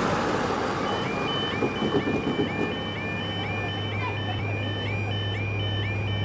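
Level crossing Yodalarm warning alarm starting up about a second in: a warbling, rising tone repeating about twice a second as the crossing begins to close. Road traffic noise is heard before it starts.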